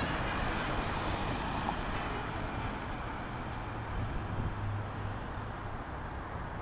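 Street traffic: a steady rumble of passing cars, with a low engine hum swelling about four seconds in.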